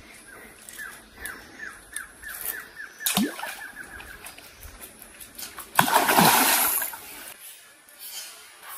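Water splashing in a shallow creek as a fishing lure is worked: a short splash about three seconds in and a louder, longer one about six seconds in. A fast run of faint chirps, about five a second, goes on through the first four seconds.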